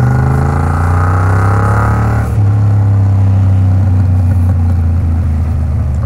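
Yamaha MT-07's 689 cc parallel-twin engine running through an Arrow Works aftermarket exhaust while riding. Its note eases down slightly, then about two seconds in drops to a lower, steady note.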